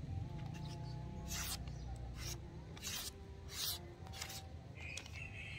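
The long blade of a chopper-type golok (machete) slicing through a sheet of hand-held paper, about five short cuts less than a second apart, a test of how sharp the edge is. Wind rumbles on the microphone underneath.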